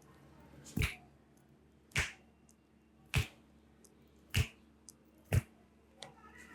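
Sharp percussive strikes of a masseur's hands in an Indian head massage, five of them evenly spaced a little over a second apart.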